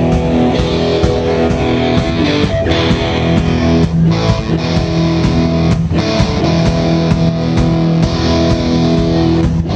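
Live rock band playing an instrumental passage with no vocals: electric guitar through Marshall amplifiers over bass and drums, with steady drum strikes.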